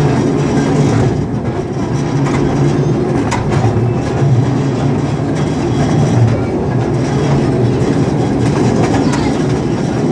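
Small festival train running along its track, heard from inside a carriage: a steady low rumble with one sharp click about three seconds in.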